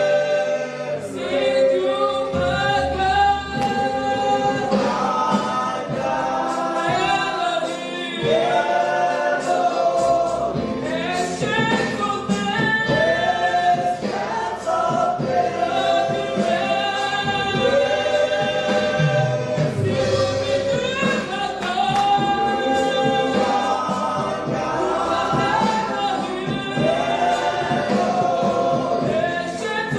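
Choir singing gospel music, several voices in harmony holding long notes.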